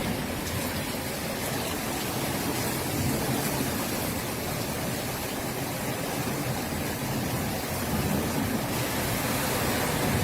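Steady rushing noise of a heavy storm downpour, hail and rain falling in strong wind.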